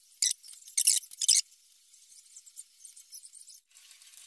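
Three short, light metallic clinks in the first second and a half, then faint scattered ticking. This is small steel parts, the plates, bolt and cable lug, knocking together as they are fitted to a welding machine's terminal.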